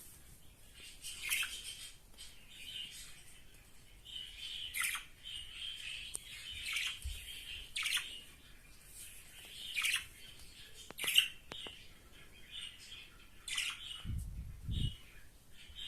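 Two budgerigars chirping and warbling together, with sharp calls every second or two. A brief low rumble comes near the end.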